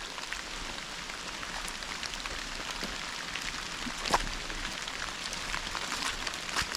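Steady rain falling, with scattered louder drops and one sharper tick about four seconds in.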